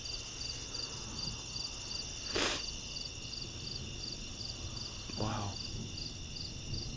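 Crickets chirping in a steady, even rhythm, with a short hiss about two and a half seconds in.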